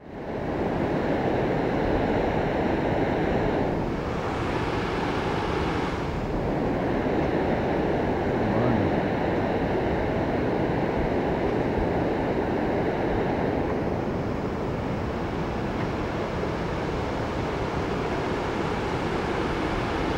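River rapids rushing steadily over boulders, a continuous even roar of white water.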